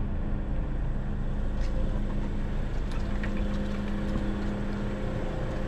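Steady low machine hum, a constant drone with no change in pitch, like an engine or compressor running at idle.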